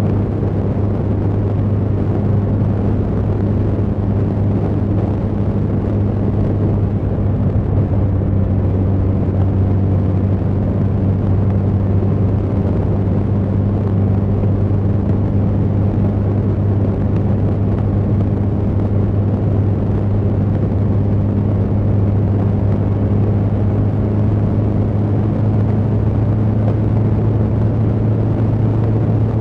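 Suzuki GSX1300R Hayabusa's inline-four engine running at steady cruising speed, a constant drone with a low hum, over rushing wind and road noise.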